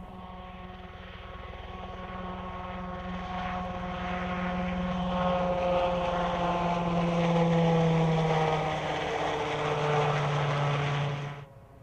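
Piasecki X-49A SpeedHawk compound helicopter flying low past: a steady rotor and engine drone with a higher whine, growing louder and dropping slightly in pitch as it passes, then cutting off abruptly near the end.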